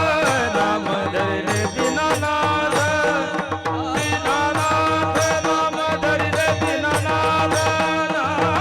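Warkari kirtan music: mridang drumming in a steady rhythm under a devotional melody, with a voice singing the chal.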